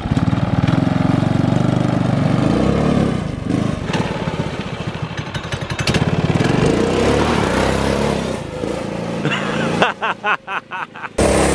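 Small gas engine of a converted Power Wheels ride-on car running and revving as the car drives off. The engine drops away sharply about ten seconds in, then is loud again near the end.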